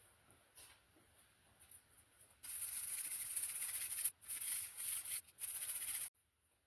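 Sandpaper rubbed by hand over a wooden rolling pin at 120 grit: a few faint scratches, then steady loud sanding strokes from about two and a half seconds in, broken by two short pauses, cutting off suddenly near the end.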